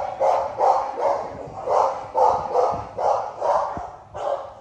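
XL American Bully dog barking steadily, about two barks a second, with a short pause near the end.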